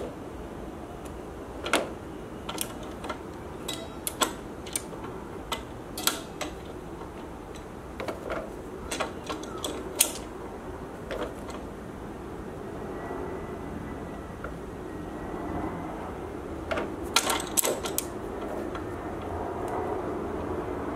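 Irregular clicks and knocks of hard objects being handled, with a busier cluster of clicks near the end, over a steady low hum.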